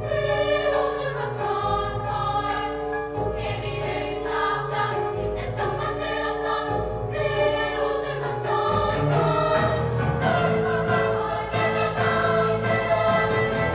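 Children's choir singing with instrumental accompaniment, the sound growing fuller and a little louder about two-thirds of the way through.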